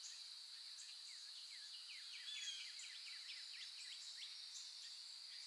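Faint woodland birdsong: a flurry of quick chirps and whistles in the middle, over a steady high-pitched hum.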